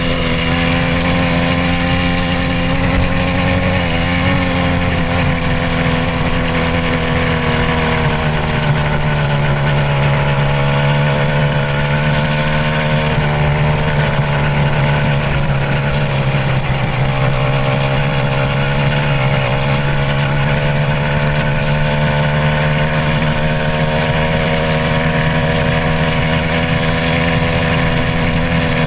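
Stock 66cc two-stroke bicycle engine kit running steadily under way, its note sagging for several seconds midway and then climbing back.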